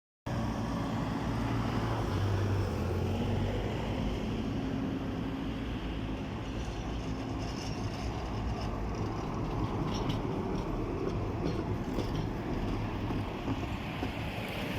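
SV-4 (VTK-06) rail-grinding service tram running along the track: a steady hum of its motors and the rumble of wheels on rail, with low tones strongest in the first few seconds and a few faint clicks later.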